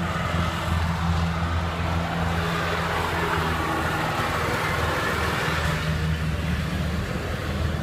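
Riding lawnmower engine running steadily with a constant low hum.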